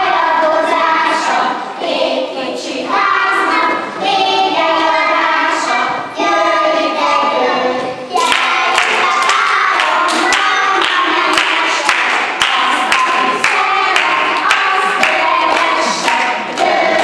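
A group of young children singing a song together during a circle dance. About eight seconds in, hand-clapping joins in on a steady beat under the singing.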